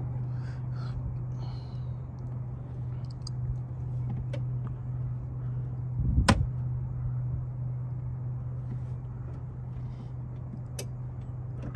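A steady low hum, with one loud thump about six seconds in and a few light clicks.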